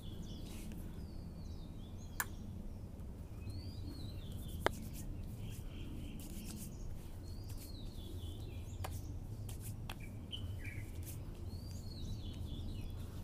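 Small birds chirping again and again in short, curved calls over a steady low hum, with two sharp clicks about two and four and a half seconds in.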